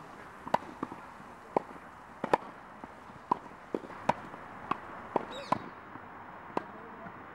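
Tennis ball struck back and forth with rackets during a volley drill: a string of sharp pops, about one to three a second, some louder than others.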